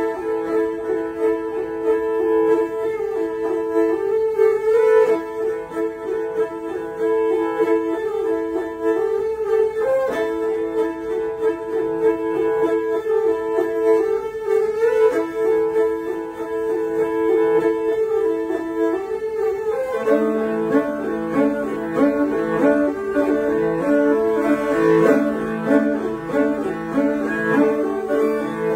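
Two morin khuur (Mongolian horsehead fiddles) bowed in duet: a melody over a held drone note. About twenty seconds in, a lower part enters and the playing turns to a quick, even figure of repeated notes.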